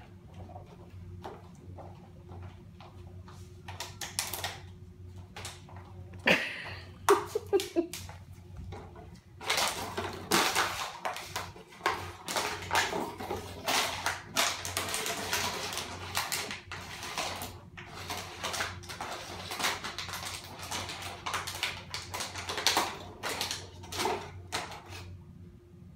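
Plastic water bottle crinkling and clattering on a tile floor as a small puppy carries and drags it, with many sharp clicks and taps; the crackling is densest from about ten seconds in.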